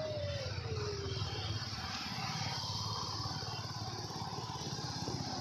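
BMW G 310 GS single-cylinder motorcycle running at low speed, a low steady engine and traffic noise. Near the start a short tone rises and then falls in pitch.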